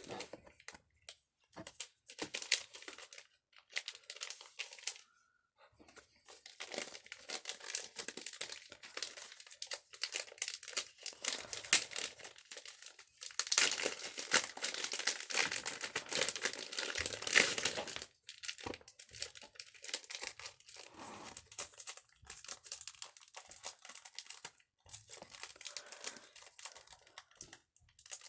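Plastic packaging of a phone case crinkling and tearing as it is handled and opened, in stop-and-start bursts, with the longest, loudest stretch about halfway through.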